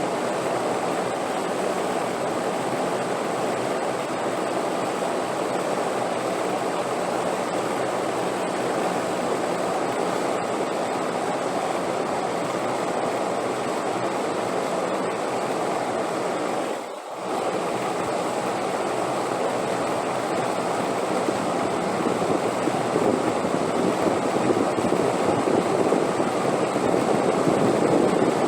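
Steady rushing wind, an unbroken noise that dips briefly about two-thirds of the way through and swells a little near the end.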